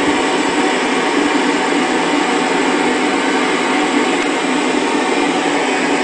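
Analog television speaker hissing with loud, steady static on a dead channel: the station's analog transmitter has gone off the air, leaving no signal.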